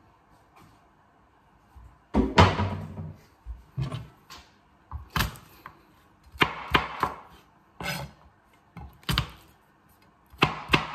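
Chef's knife chopping garlic cloves on a cutting board: separate knocks of the blade on the board, starting about two seconds in and coming singly and in quick runs of two or three.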